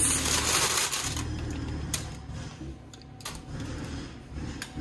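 Parchment paper rustling and crinkling as hands tuck it around freshly baked sourdough loaves on a wire cooling rack. It is loudest for about the first second, then quieter, with a few light clicks and a low hum underneath.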